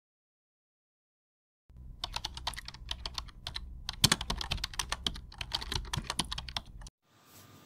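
Computer keyboard typing, rapid irregular key clicks, starting about two seconds in and stopping shortly before the end.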